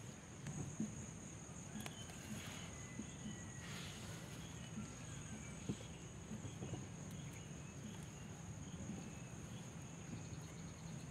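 Steady high-pitched trill of insects, with light rustling and small clicks from tomato plants being handled.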